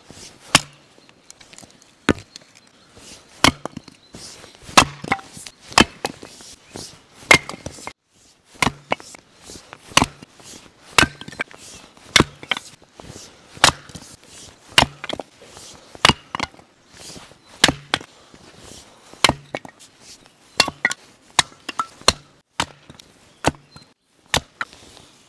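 Axe splitting firewood on a wooden chopping block: a long series of sharp chops, about one to two a second, some coming in quick pairs, as rounds are split down into smaller pieces and kindling.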